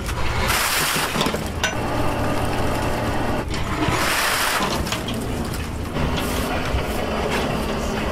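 Seawater pouring off long strings of farmed oysters as a crane hoists them from the sea, coming in two rushes about half a second and four seconds in, over a steady low machine hum.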